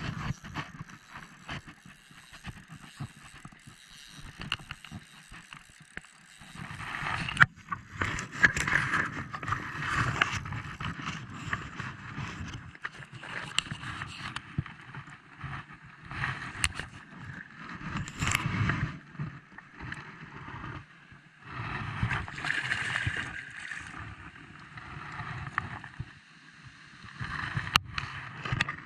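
Shallow river water splashing and sloshing in irregular bursts as a hooked mandarin fish is played toward the bank, with scattered knocks and rubbing from handling close to the camera.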